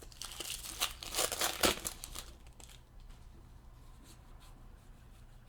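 Trading cards and their plastic packaging being handled, crinkling and rustling for about two seconds, then only a few faint ticks.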